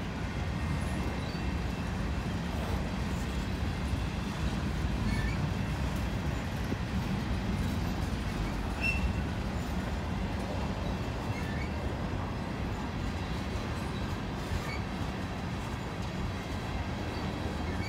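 Freight train cars (covered hoppers and tank cars) rolling past at steady speed: a continuous rumble of steel wheels on the rails, with a few brief faint high squeaks from the wheels.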